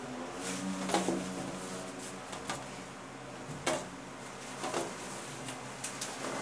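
T-shirt being handled and laid on a tabletop: a few short rustles and soft knocks of cloth and hands against the table, about five in all, over a steady background of low held tones.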